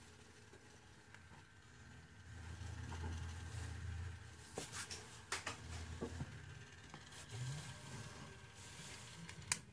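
Faint handling noise in a small room: a low rumble for a few seconds, a few light clicks and taps, and one sharper click near the end as a hand touches the model's base.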